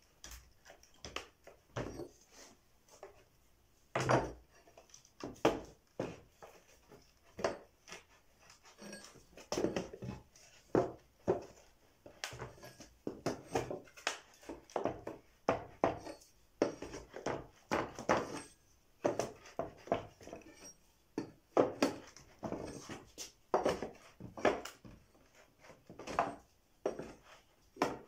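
Claw hammer striking the back of a hatchet wedged between a wooden pallet's board and its runner: a long run of sharp, irregular knocks, about one or two a second, working the board loose to dismantle the pallet.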